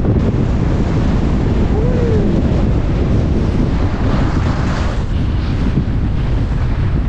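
Wind buffeting a GoPro's microphone at speed on a ski run, over the steady hiss of edges sliding on groomed snow. About four seconds in the hiss grows brighter and louder as the rider carves a turn that throws up snow.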